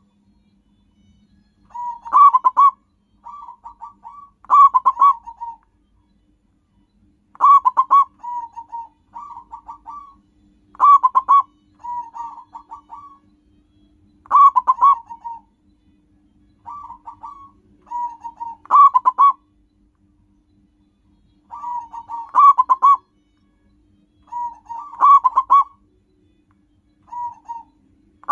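Zebra dove (perkutut) cooing: phrases of rapid coo notes that open with a loud burst and trail off into softer coos, repeating every three to four seconds with short pauses between.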